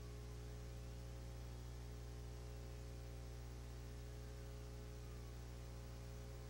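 Steady electrical mains hum with hiss on the audio track, unchanging throughout.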